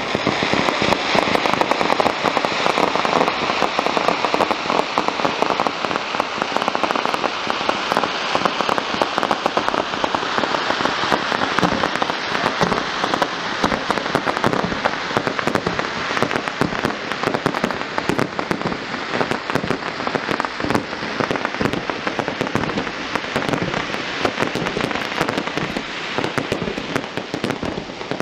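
Aerial fireworks display: a dense, unbroken crackle of many small pops, loud and steady, easing off slightly near the end.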